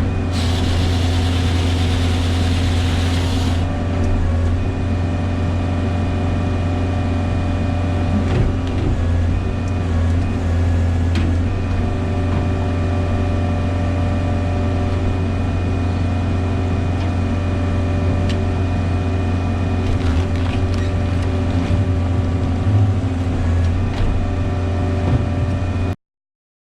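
Bobcat Toolcat's engine running steadily under hydraulic load while it powers an HWP-120 firewood processor, with a hiss over the top in the first few seconds and a couple of short knocks later. The sound cuts out abruptly near the end.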